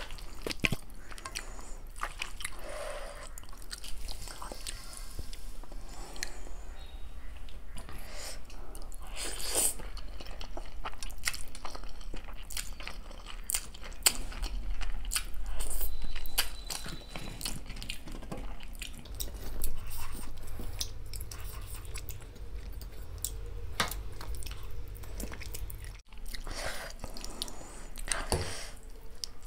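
Close-miked mukbang eating: chewing and crunching of crisp golgappa puris filled with yogurt and Maggi noodles, with many short sharp crunches and wet mouth sounds.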